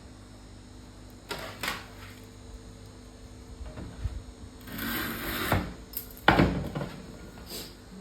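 An HPL laminate cutter being worked by hand: a couple of sharp clicks, then a scraping stroke lasting about a second, and a loud sharp knock just after, followed by a lighter click near the end.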